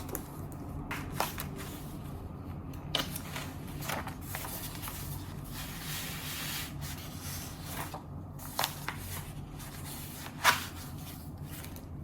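Paper handling at a study desk: rustling and rubbing of pages or sheets, with a few light taps or clicks, the sharpest about ten and a half seconds in.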